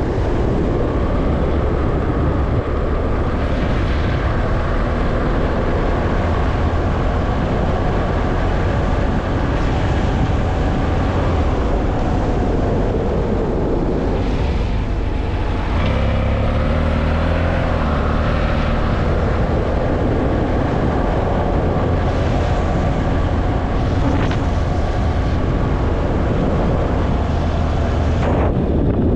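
A vehicle driving along a road: steady engine and road noise, with the engine note changing about halfway through.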